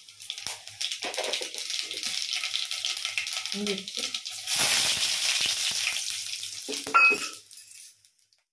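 Panch phoron seeds crackling and sizzling in hot oil in a stainless-steel kadai. About four and a half seconds in, pieces of elephant apple go in and the sizzle grows much louder. A ringing metal clink comes about seven seconds in, and the sound cuts off suddenly near the end.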